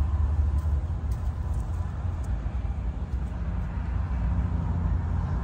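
Steady low outdoor rumble with no distinct event, and a few faint clicks in the first half.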